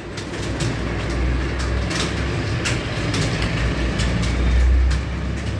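Many computer keyboards clattering at once, a dense stream of overlapping key clicks from a room full of people typing, over a low rumble.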